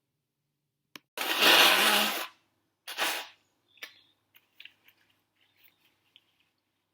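A loud, forceful blast of air through a person's nose, about a second long and starting about a second in, followed by a second, shorter burst about three seconds in. Faint sniffles and small clicks come after.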